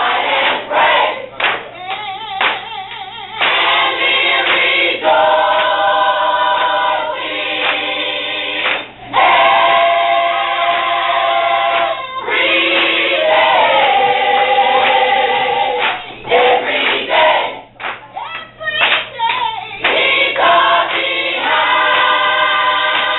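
A choir of mixed voices singing together in harmony, in phrases that break off and start again every few seconds.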